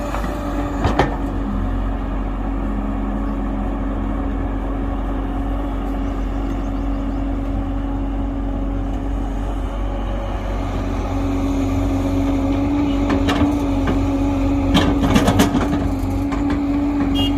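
Excavator's diesel engine running steadily under load, getting a little louder about two-thirds of the way through, with a few sharp knocks near the end.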